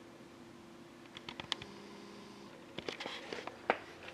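Faint scattered clicks and light taps of small handling sounds over a quiet room hum, a few clustered about a second in and more near the end.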